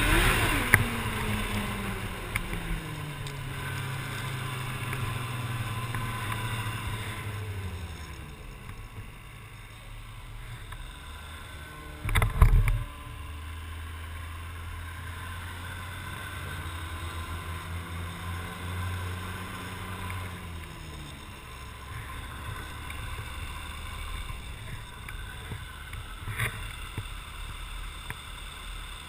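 Arctic Cat snowmobile engine running at speed with wind rushing past. The engine note falls over the first few seconds as the throttle eases, with a short loud knock about twelve seconds in, then steady running that eases off again around twenty seconds.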